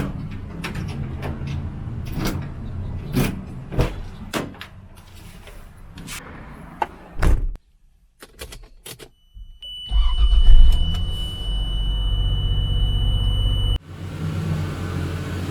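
A string of clicks and knocks over a low rumble, then, about ten seconds in, a vehicle engine running with a steady high whine that cuts off suddenly near the end.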